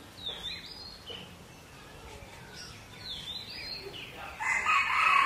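Two short high bird chirps about three seconds apart, then a rooster crowing loudly near the end.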